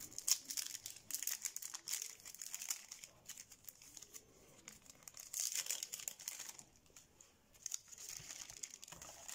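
Foil booster-pack wrapper crinkling as it is torn open by hand, in irregular bursts of crackle, louder in the middle and quieter near the end.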